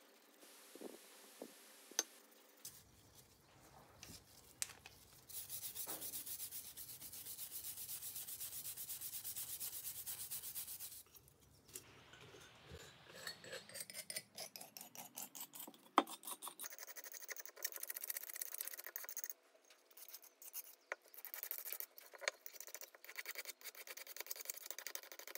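Old paint being scrubbed and scraped off a vintage coin bank part by hand. It starts with several seconds of steady scrubbing, then goes to quick repeated rubbing and scraping strokes with a sharp click about two-thirds of the way in.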